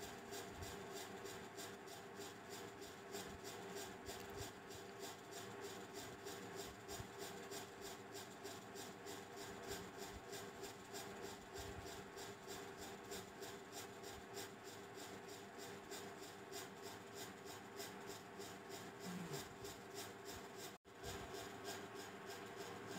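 Spatula scraping and stirring chopped coconut pieces as they roast in a steel kadai. The faint scrapes come quickly and evenly, over and over.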